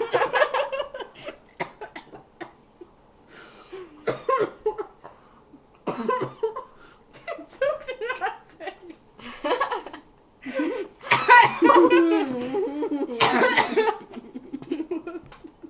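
Girls laughing in short bursts, with some coughing, as they eat cake face-first; a long, loud fit of laughter comes about two-thirds of the way in.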